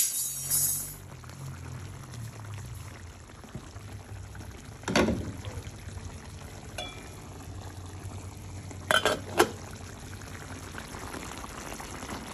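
Fish curry bubbling in a pan: a lively crackling boil in the first second, then a low, steady simmer. A sharp knock comes about five seconds in, and two more close together about nine seconds in.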